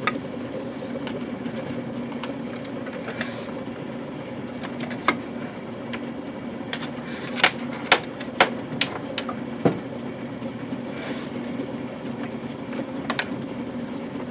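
O-scale model railroad equipment running with a steady electric motor hum, with several sharp clicks and knocks in the middle.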